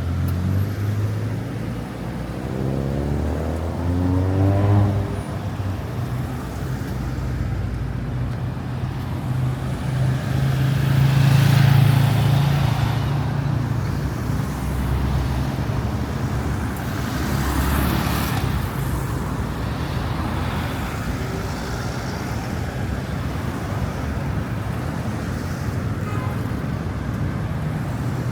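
Road traffic on a busy city street, with cars passing close by. One vehicle accelerates with a rising engine note a few seconds in, and the loudest one goes by a little under halfway through.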